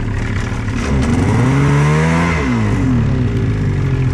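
Snowmobile engine idling, then revved up and let back down several times. The rider is using light throttle on a sled stuck in deep snow, trying to get the track to grip without digging in.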